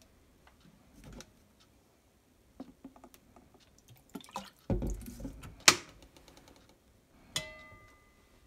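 Kitchen handling sounds as soy sauce and vinegar are poured from bottles into a metal spoon over a stainless-steel bowl: faint trickles and small clicks, a louder splashy stretch about five seconds in ending in a sharp click, the loudest sound. Near the end comes a single clink of metal against the steel bowl that rings on with a few clear tones.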